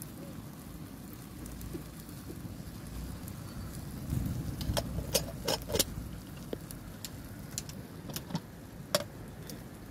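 Metal kettle handled on a wood-fire stove: a run of sharp metallic clinks and clatters midway and another single clink near the end, over a steady low rumble.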